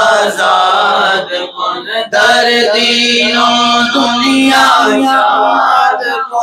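A man chanting a manqabat, a devotional Sufi poem, in long drawn-out melodic phrases, holding one note for about four seconds from around two seconds in.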